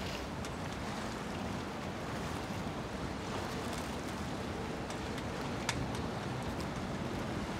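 Steady rush of wind and water aboard a coastal passenger ship under way, with a faint low engine hum beneath it. A single sharp click sounds a little before six seconds in.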